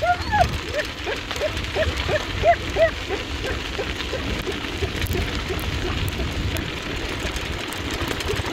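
Wheels of a dog-drawn dryland rig rolling fast over a dirt trail, a steady crunching hiss over a low rumble. A run of short squeaky chirps, about three a second, fades out about three seconds in.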